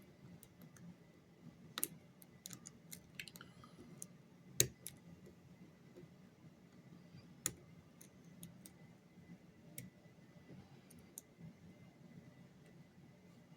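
Lock pick and tension tool clicking and ticking against the pins inside a lock as it is being picked. The clicks are irregular: a quick run of small ones, then two louder single clicks.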